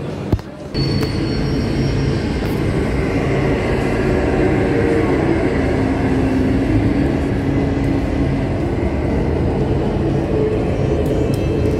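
Passenger lift starting up and ascending: a click, then from under a second in a steady rumble and hum of the car in motion, with a brief high tone as it sets off.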